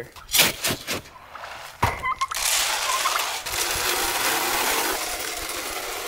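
Dry feed poured from a plastic scoop into a wooden trough: a steady pouring hiss from about two and a half seconds in, after a few knocks in the first two seconds.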